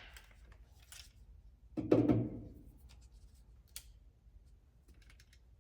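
Small metal hardware being handled by feel while nuts and washers are started on rock-guard mounting studs behind a car fender: faint scattered clicks and rubbing. About two seconds in there is one short, louder low sound.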